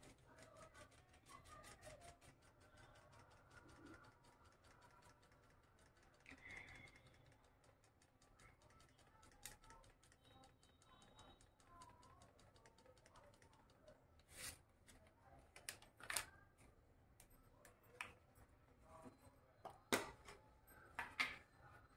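Near silence broken by scattered small clicks and taps of kitchen packets being handled, with a few sharper plastic clicks near the end as the lid of a plastic spread tub is worked open.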